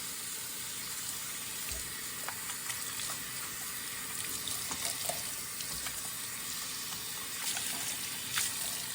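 Tap water running steadily over a wig to rinse the conditioner out of its hair: an even hiss, with a few small splashes and ticks.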